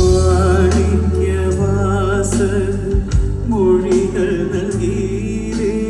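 Music with a singer, played loud through a PA system: a sung line with vibrato over long, steady bass notes and a few drum hits.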